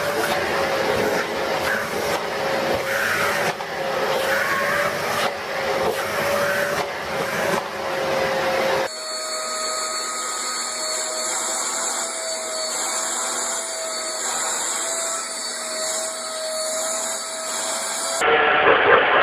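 Vacuum cleaner motor running with a steady whine and a few knocks. About nine seconds in it cuts to a second vacuum cleaner with a slightly higher, even steadier whine.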